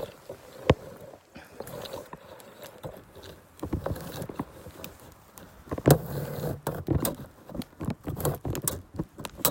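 Irregular crunching and scraping in deep, fluffy snow, sparse at first and busier from about four seconds in, as the snow is disturbed while a ruler is put in to measure its depth.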